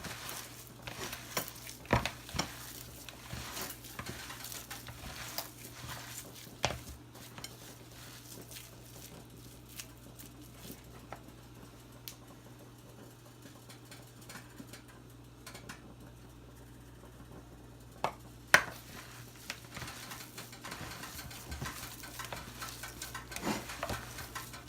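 Scattered clinks and knocks of a utensil against a bowl as the salmon patty mixture is stirred. The knocks are busier at the start and near the end, with a quieter stretch in the middle.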